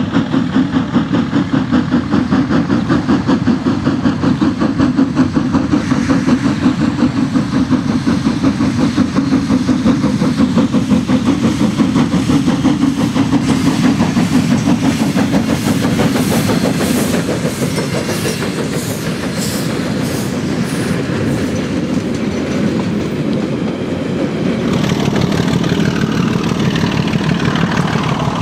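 Ja class steam locomotive 1275 working hard as it passes, with fast, even exhaust beats. Between about 16 and 21 seconds in, wheels click over the rail joints as the train goes by.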